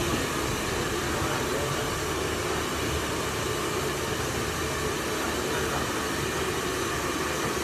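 Handheld hair dryers blowing steadily, a constant even rush of air noise.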